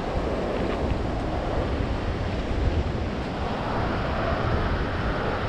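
Ocean surf washing onto a sandy beach, a steady noise with no distinct events, with wind rumbling on the microphone.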